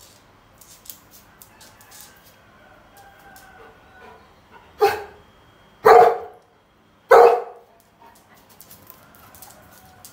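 Golden retriever barking three times, about a second apart; the second and third barks are the loudest.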